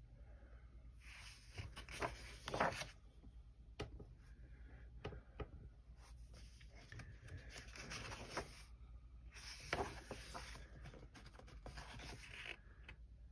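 Paper rustling as the pages of a paperback colouring book are turned and handled, in several soft bursts.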